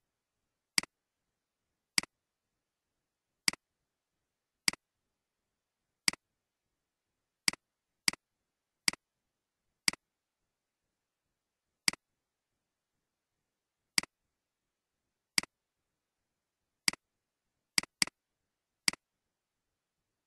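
Computer mouse clicks, about sixteen sharp single clicks at uneven intervals, a couple close together like quick double clicks, with dead silence between.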